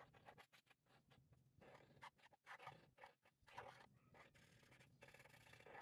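Marker pen drawing lines on paper: a faint run of short scratchy strokes with brief pauses between, and a longer stroke near the end.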